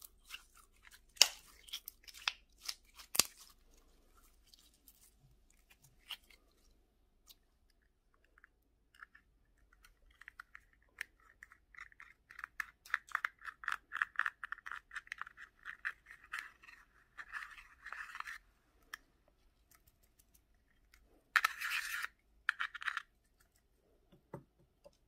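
Clear slime squeezed by hand, with sharp sticky clicks and pops in the first few seconds. Then a pressed blush powder is scraped out of its compact pan with a thin tool: a long run of fine, quick scratching, with two short louder scratchy bursts near the end.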